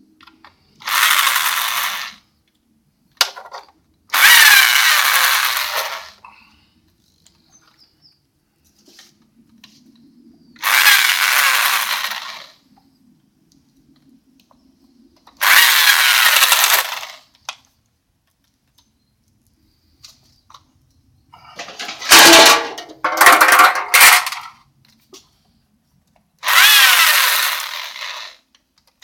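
Power drill or driver run in short bursts of one to two seconds, about six times, its pitch sliding down within each burst. About 22 seconds in comes a choppier, rattling run of shorter bursts.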